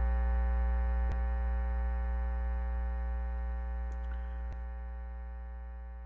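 Electrical hum from powered PA speakers: a steady low drone with a buzzy string of overtones, slowly getting a little quieter, with a couple of faint ticks. The owner puts the hum down to the unbalanced cables running from the mixer or audio interface to the speakers.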